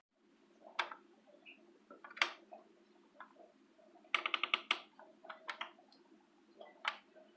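Scattered light clicks and taps of kitchen work. There is a sharper tap about two seconds in, a quick squeaky rattle of several clicks about four seconds in, and another tap near the end.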